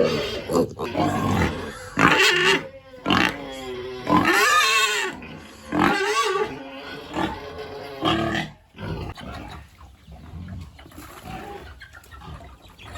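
Pigs squealing and grunting: a run of loud, pitched squeals through the first eight seconds, the longest about four seconds in, then quieter grunting.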